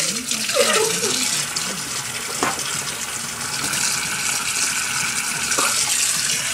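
Water running steadily from a tap and splashing into a kitchen sink, with a couple of short knocks partway through.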